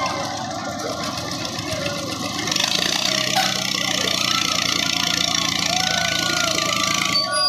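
Fairground dragon swing ride's machinery running with a steady mechanical drone, with faint rising and falling voices of riders over it.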